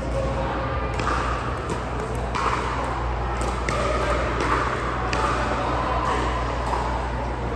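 Scattered sharp clicks, about eight, irregularly spaced over a steady background of distant chatter in a large hall.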